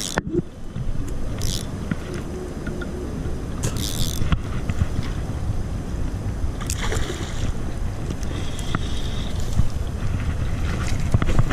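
Wind rumbling on the microphone, with a few short sharp rustling noises from handling a rod and spinning reel while a bass is reeled in to the bank.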